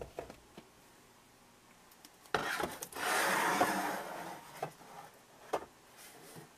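Canned goods and jars being handled and shifted on pantry shelves: a sharp click at the start, a rubbing, rustling noise for about two seconds from a little past two seconds in, then a few light knocks.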